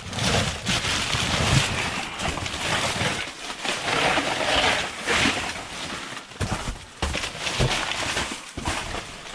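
Rummaging through bagged and packaged food in a dumpster: irregular plastic rustling and crinkling with scattered knocks and bumps.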